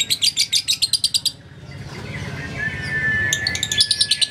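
Fischer's lovebird chattering in a fast, even run of sharp high chirps, about ten a second. The run breaks off about a second in and starts again near the end. A steady high whistle sounds through the gap.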